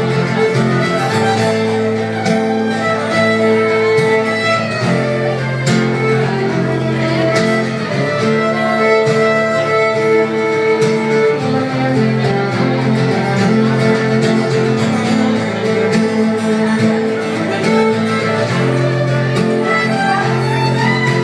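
Live instrumental music: an acoustic guitar strummed with a fiddle playing a melody of held and sliding notes over it.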